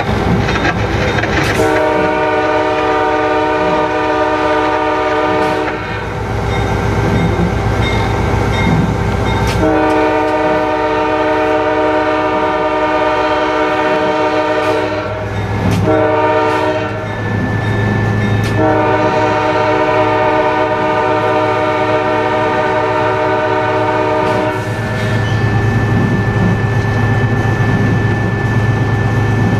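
Locomotive multi-chime air horn sounding the standard grade-crossing signal: two long blasts, a short one, then a long one, warning of a road crossing ahead. Underneath runs the steady low rumble of the locomotive heard from inside the cab.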